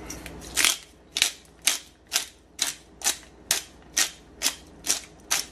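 A hand-twisted pepper mill grinding black pepper, with about eleven short gritty cracking strokes at an even pace of roughly two a second, one for each twist.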